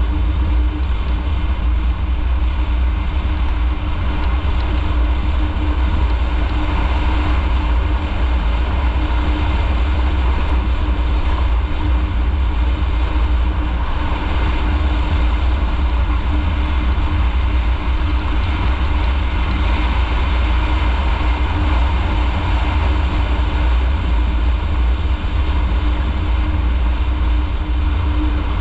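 Motorcycle being ridden, its engine running steadily under a heavy low rumble of road and wind noise, with no change in pace.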